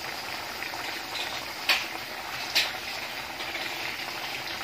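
Rice boiling vigorously in a pot of water: a steady bubbling hiss, with two louder pops close together near the middle.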